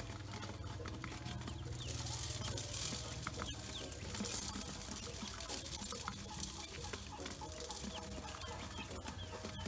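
Pekin and black ducklings peeping and pecking grain from a steel bowl, their bills clicking and scraping on the metal, with louder bursts of scrabbling about two and four seconds in.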